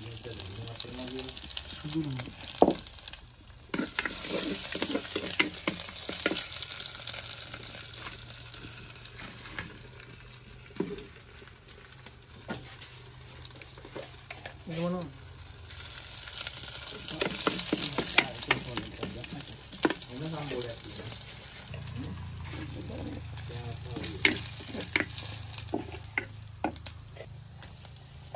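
Food frying in hot oil in a clay cooking pot: a steady sizzle with spattering crackles and occasional knocks. The sizzle swells louder a few seconds in and again just past the middle.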